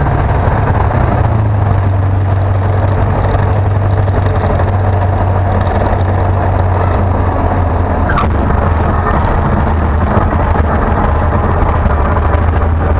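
A single-engine light aircraft's piston engine and propeller running steadily at low taxi power, heard inside the cockpit, with a slight change in engine note about a second in. A brief sharp click about eight seconds in.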